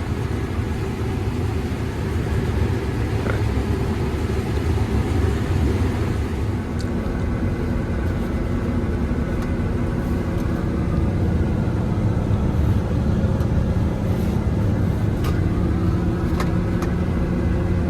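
Combine harvester running steadily while cutting corn, heard from inside the cab: an even, low engine and machinery drone with a few faint ticks.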